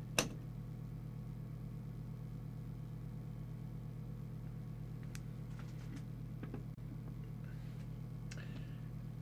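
Steady low electrical hum from the bench setup, with one sharp click just after the start and a few faint clicks around five to six and a half seconds in.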